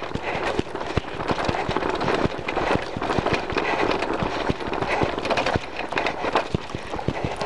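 Mountain bike rattling over a bumpy dirt and grass trail at speed: a steady rumble of tyres on the ground, broken by frequent, irregular sharp knocks as the bike bounces.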